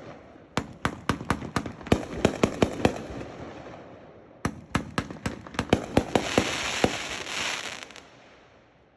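Sky Bacon 'Willow Nation' consumer firework cake (20 shots) firing: rapid sharp reports in two volleys, then a dense hiss that fades away about a second before the end.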